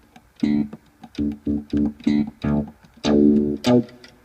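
Yamaha PSR-275 portable keyboard playing a run of about eight short, detached notes in a plucked, bass-guitar-like voice, with one note held longer about three seconds in.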